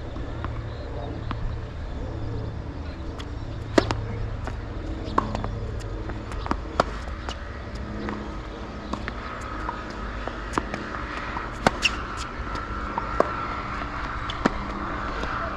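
Tennis rally: a string of sharp pops from the ball being struck by rackets and bouncing on the court, one every second or two, over a steady low rumble of strong wind on the microphone.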